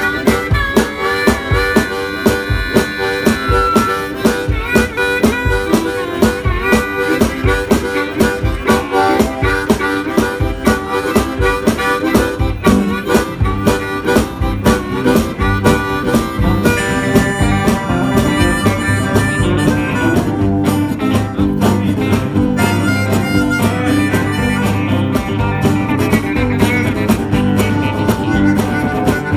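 Live blues with harmonica over strummed acoustic and electric guitars at a steady beat; heavier low notes join about halfway through.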